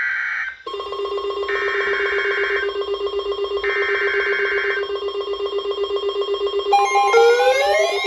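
Emergency Alert System SAME header: three short bursts of data screech about a second apart, over a steady, rapidly pulsing ringing tone. About seven seconds in, rising and falling siren-like wails begin.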